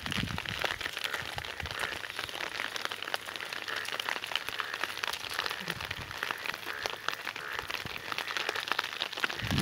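Heavy rain falling steadily: a dense hiss of many small drop impacts, with a few brief low rumbles.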